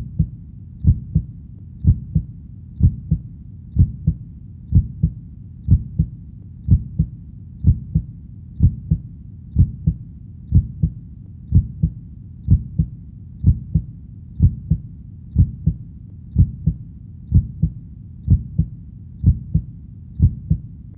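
Recorded heartbeat, low and steady: a lub-dub double thump about once a second (around 60 beats a minute), with a low rumble between beats.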